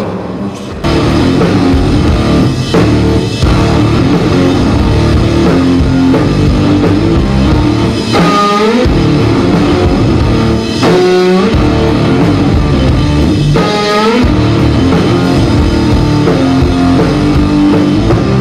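Guitar-and-drums rock duo playing live: electric guitar over a drum kit, kicking in abruptly just under a second in. Three falling swoops in pitch come about every three seconds in the middle.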